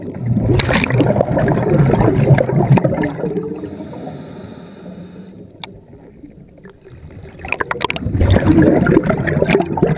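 Scuba diver breathing through a regulator underwater: a long rush of exhaled bubbles, a quieter hissing inhale, then another rush of bubbles from about seven and a half seconds in.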